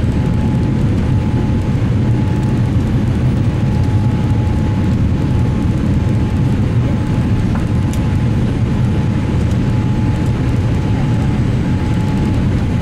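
Cabin noise inside a Boeing 787-8 airliner: a steady low rumble of engines and airflow with a faint steady whine above it.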